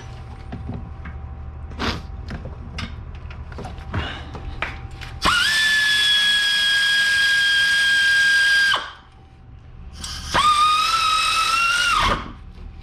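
Cordless power tool running in two spells, about three and a half seconds and then about two seconds, a steady whine that rises slightly at the end of the second run. It is driving in the 14mm bolts that hold the CV axle. A few light clicks of hand tools come before it.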